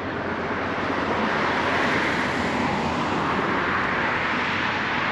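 A steady rushing noise from a passing vehicle, swelling over the first two seconds and then holding.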